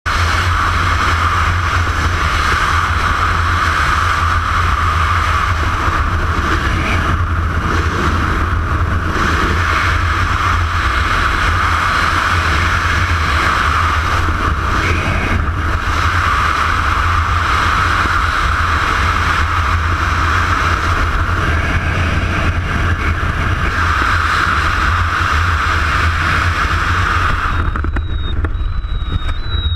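Freefall wind rushing over a GoPro's microphone: a loud, steady rush of noise. Near the end it cuts off sharply as the parachute opens, leaving a thin high tone.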